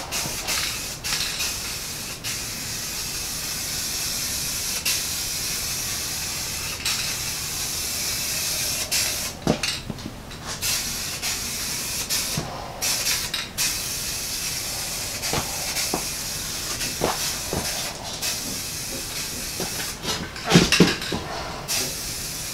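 Aerosol spray-paint can spraying a steady hiss of paint onto a steel truck frame in long passes. There are short breaks between passes, and a few light knocks near the end.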